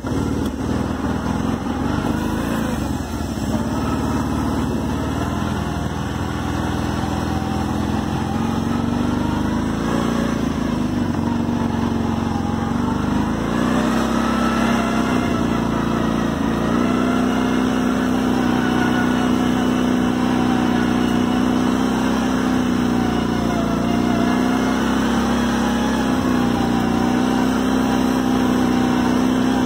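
ATV engine running while riding. Its pitch rises and falls a little with the throttle about a third of the way in, then holds steady.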